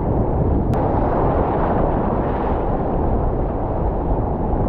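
Ocean surf: broken whitewater rushing and churning around a kayak, a steady loud low rumble.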